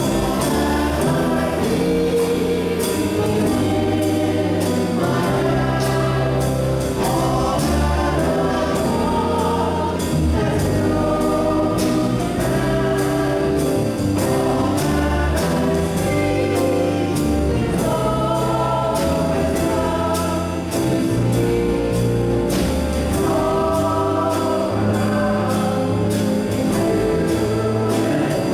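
Gospel-style song sung by a choir with live band accompaniment, held vocal notes over bass and a steady beat.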